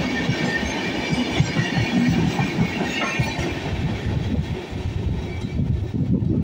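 Express passenger train's coaches running past at speed, the wheels clattering over the rail joints in a dense, irregular rhythm. A thin high ringing from the wheels and rails fades out about halfway through.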